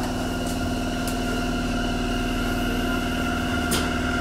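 Sendai Subway 2000 series linear-motor train pulling away from a station: a steady electric whine of several even tones over the running hum, with a sharp click about three and a half seconds in.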